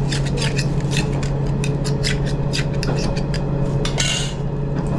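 A knife scraping and clicking against a scallop shell as the scallop is pried open and shucked, over the steady hum of a diesel railcar running. A short rustling hiss comes about four seconds in.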